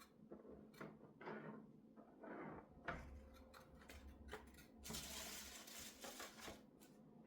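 Quiet handling of small perfume boxes and bottles: soft taps, clicks and rustles, with a longer rustling hiss about five seconds in.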